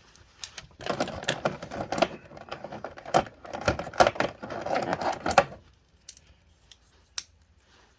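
Metal toy Ranger Keys being handled in their packaging: a few seconds of rattling, rustling and clicking, then a few separate clicks near the end.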